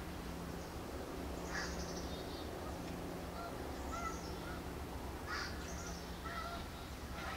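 Birds calling in the distance, several short calls spaced a second or two apart, over a steady low hum and rumble.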